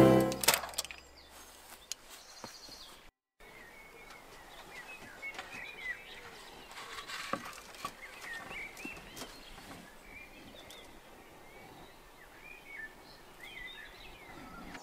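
Faint outdoor ambience with small birds chirping and twittering on and off, after background music fades out in the first second or so.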